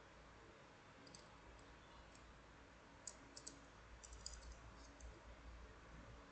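Faint, light clicks of metal wire puzzle pieces, the double pair of hooks, knocking together as they are handled. The clicks are scattered from about a second in and bunch up between about three and five seconds in, over near-silent room tone.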